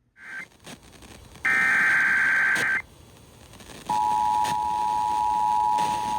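Emergency Alert System header data bursts (SAME tones): a short buzzing burst, then a longer one of about a second and a half. About a second later comes the steady two-tone EAS attention signal, held for about three seconds, over a hiss of radio static.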